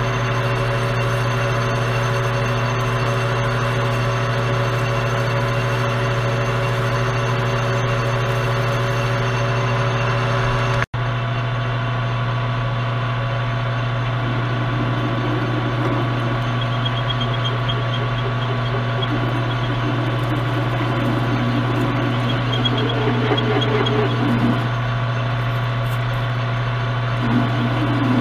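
Metal lathe running steadily with a constant motor and gear hum while a larger drill bit bores out an aluminium bar. The sound cuts out for an instant about eleven seconds in.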